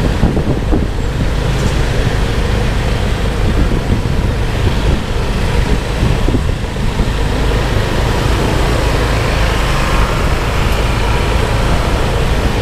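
Steady motorbike riding noise in street traffic: engine and road noise under a heavy low rumble of wind on the microphone.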